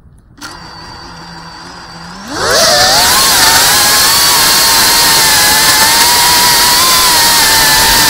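FPV quadcopter's brushless motors: a low idle hum, then about two seconds in a sharp spool-up to a loud, steady high-pitched whine as the drone takes off and flies. Heard close from the camera mounted on the drone.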